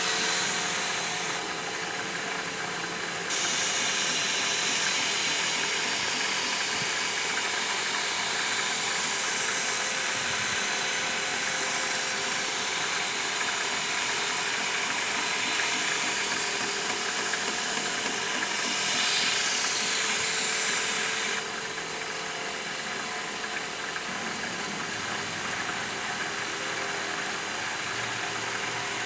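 A power tool running steadily with a noisy, high whir. The level jumps abruptly about three seconds in and drops again about two-thirds of the way through.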